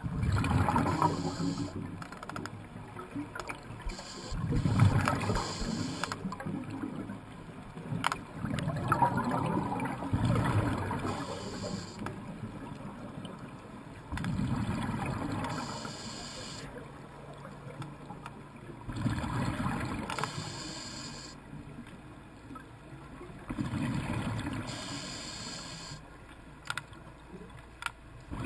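Scuba diver's breathing heard underwater: exhaled bubbles rumble and gurgle out of the regulator about every four to five seconds, with quieter inhalations in between.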